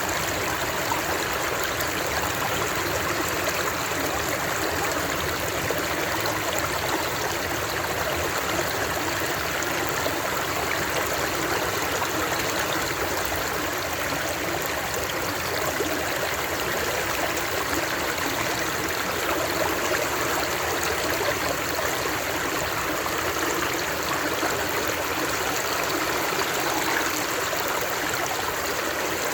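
Running water, like a stream, flowing with a steady, even rush that does not change.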